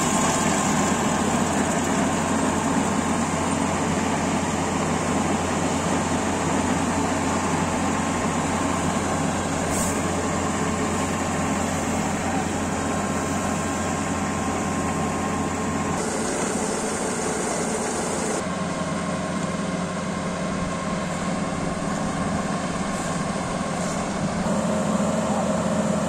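Kubota AR90 combine harvester running steadily, its engine and threshing and unloading machinery going as grain is augered out into a trolley. The tone of the machinery shifts about two-thirds of the way through.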